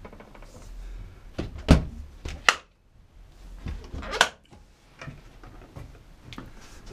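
Knocks and thumps of a Westerbeke generator's sound-enclosure cover panel being put back in place and handled, two loud knocks a little under a second apart about two seconds in and another about four seconds in. The generator itself is not running.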